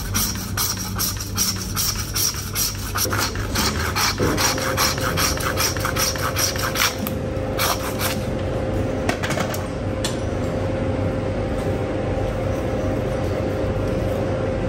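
Hand bone saw rasping through the marrow bone of a dry-aged beef leg in quick back-and-forth strokes, about two to three a second. The sawing stops about seven seconds in, followed by a few single strokes.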